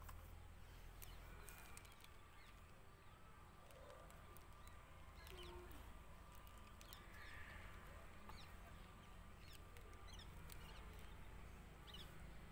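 Near silence: a low steady hum with faint scattered ticks and a few distant short bird chirps.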